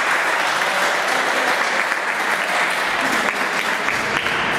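A group of people clapping their hands, a steady round of applause.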